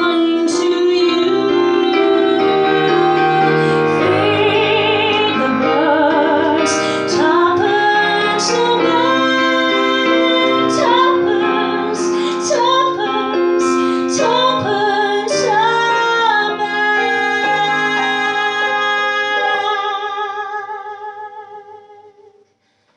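A woman singing a slow ballad with vibrato, accompanied by piano. The last held note and piano chord fade away near the end.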